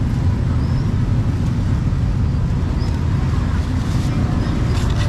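Steady low rumble of street traffic, with wind buffeting the microphone.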